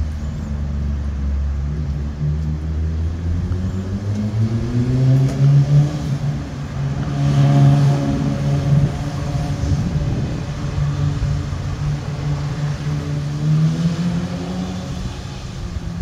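An engine running throughout, its pitch climbing over a few seconds and then holding steady.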